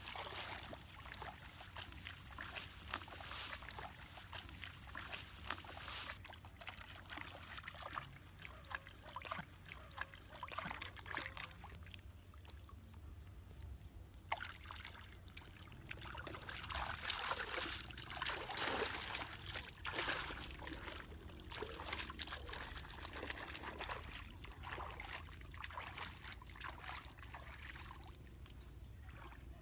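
Shallow ditch water sloshing and trickling in irregular splashes as a person wades and works at the water's edge.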